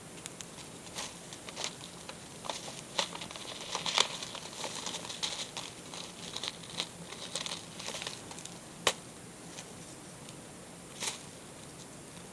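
Paper bag crinkling and rustling as pet rats rummage inside it for treats: a busy run of short, sharp crackles that thins out to a few single crackles near the end.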